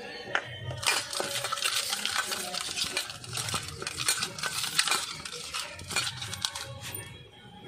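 Hands rubbing salt and turmeric into whole fish in a stainless-steel bowl: a busy run of wet scraping and clinking against the steel that starts about a second in and dies down near the end.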